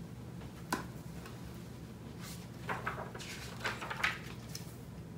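A hardcover picture book being handled and opened: a few sharp taps and short paper rustles as the cover and pages are turned, over a steady low hum.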